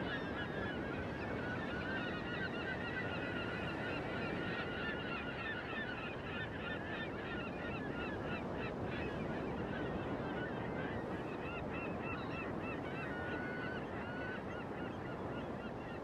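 A seabird colony calling constantly, many short high calls overlapping, over a steady rushing background.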